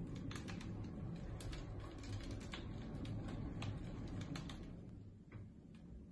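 Large cat exercise wheel turning under a trotting Abyssinian cat: a low steady rumble from the wheel with irregular light clicking, which thins out near the end.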